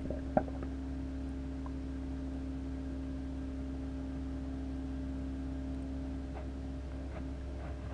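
Reef aquarium pumps running with a steady hum made of several fixed tones. A single sharp click about half a second in, and a few faint ticks near the end.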